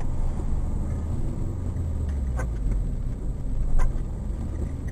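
Steady low rumble of a vehicle cruising on a wet highway, heard from inside the cab, with a few short knocks about two and a half and four seconds in.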